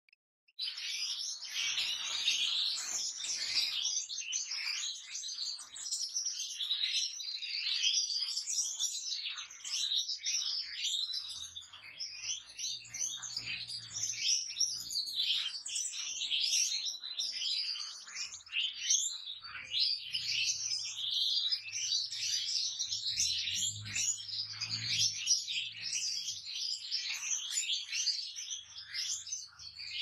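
Many goldfinches and canaries in an aviary singing and chirping all at once, a dense, continuous chorus of overlapping high twitters and trills.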